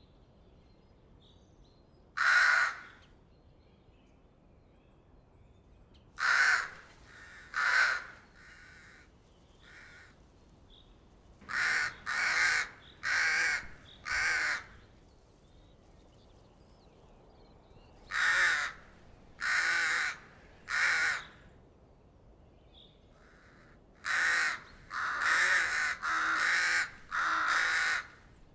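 Crow cawing: a single caw, then series of two to five harsh caws separated by pauses of a few seconds, with a couple of fainter caws among them.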